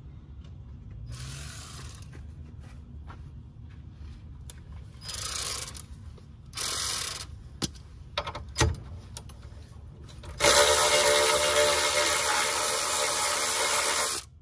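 Hand ratchet and 17 mm socket loosening the ball joint nut on a Kawasaki Mule's front steering knuckle. A few short ratcheting strokes and clicks, then about four seconds of fast, continuous ratcheting near the end, the loudest part.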